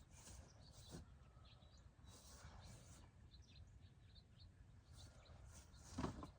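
Near silence: faint outdoor ambience with a low steady rumble and a few faint, short bird chirps, then a brief rustle or thump near the end.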